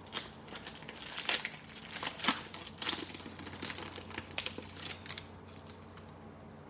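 A football trading-card pack's wrapper crinkling and crackling as it is opened and handled. The sharp crackles are dense for about five seconds, then grow sparse and faint.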